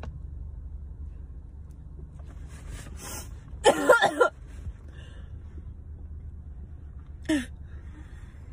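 A person's short strained vocal noises during a nasal swab: a loud cluster of pitched cries about halfway through and a brief falling one near the end, over a steady low hum.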